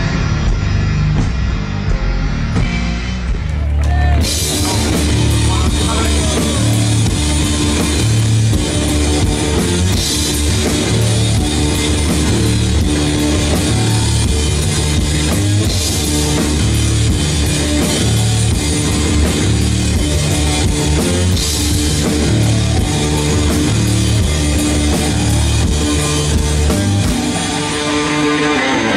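Loud live rock music from an electric guitar and a drum kit, growing fuller and brighter about four seconds in.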